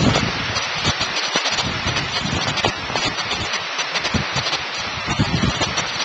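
Storm wind gusting hard over the microphone, with a steady hiss of heavy rain.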